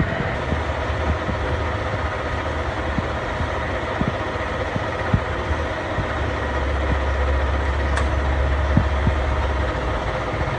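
Metal lathe running and taking a facing cut across a hard steel hub cap: steady machine noise with a low hum that grows stronger for a few seconds past the middle, and a single sharp click about eight seconds in.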